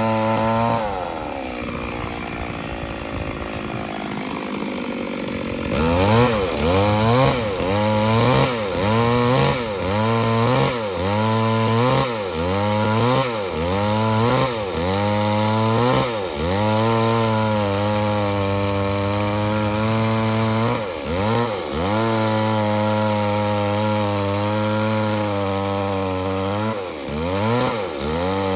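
Chainsaw at full throttle that drops back to a lower idle about a second in, then revs up again about six seconds in and cuts wood: the engine pitch dips and recovers over and over as the chain bites, then holds high with a few brief dips near the end.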